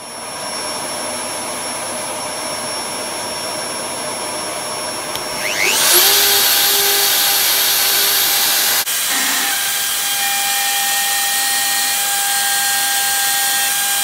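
DeWalt DW621 half-inch plunge router, fitted with a 10 mm carbide end mill, running with a steady motor whine. About five seconds in, its pitch rises sharply and it gets louder, then it runs on steady at the higher speed, with a short break near nine seconds.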